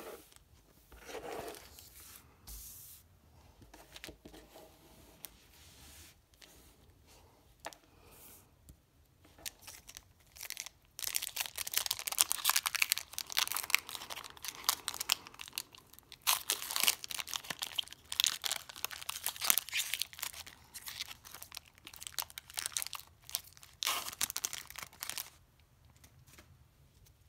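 Foil wrapper of a Pokémon trading card booster pack being torn open and crinkled in the hands: a dense run of crackling that starts about ten seconds in, after quieter handling, and comes back in bursts for several seconds more.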